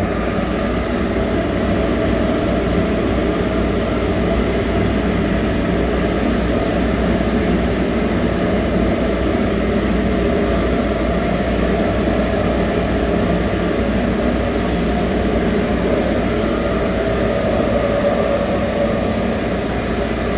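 Loewer 3DBB brush sanding machine running steadily, its rotating abrasive brushes working over floor grates: a dense, even machine noise with no change in level.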